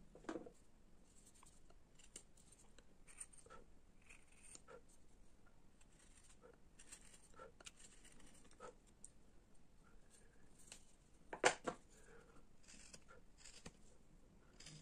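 Faint, scattered short scrapes and clicks of a hand carving blade cutting and shaving linden wood, with one louder knock about eleven and a half seconds in.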